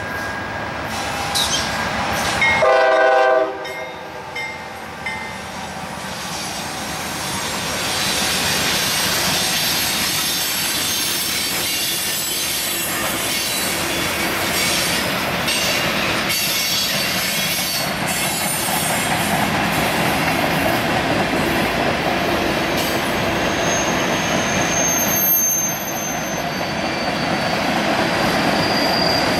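Freight train passing, led by a GE C44-9W diesel locomotive that sounds its horn in one blast of about a second, about three seconds in. Then covered hopper cars roll by with a steady rumble and wheel clatter, and high wheel squeal comes in near the end.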